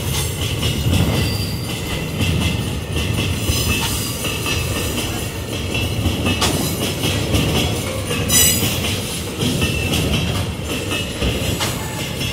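Empty steel ore gondola wagons rolling past close by, their steel wheels clattering steadily over the rails, with one sharp knock about eight seconds in.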